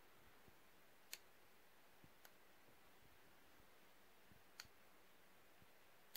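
Near silence: room tone with a few faint, irregularly spaced clicks.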